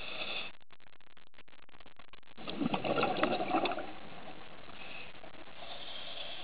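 A scuba diver's regulator breathing underwater: a short hiss of inhaling at the start, a burst of exhaled bubbles about two and a half seconds in lasting a second or so, and another inhale hiss near the end.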